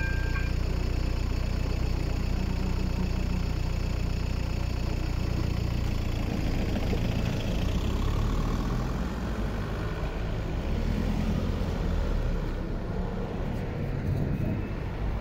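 The electronic crossing bell's ringing tones stop just after the start, leaving a Volkswagen van's engine idling with a steady low hum close by. About six seconds in the van pulls away over the crossing, and other cars drive across after it.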